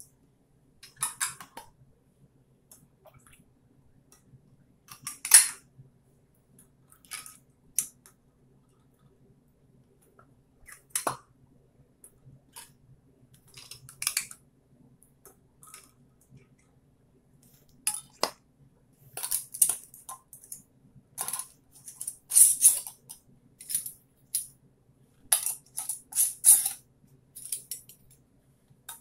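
Metal canning lids and screw bands clinking against glass mason jars as they are set on and screwed down: a string of short, sharp metallic clinks, sparse at first and coming thick and fast in the second half.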